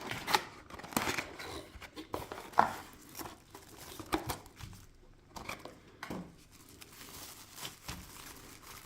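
Packaging crinkling and rustling, with scattered sharp clicks and taps, as a newly bought camera lens is unwrapped.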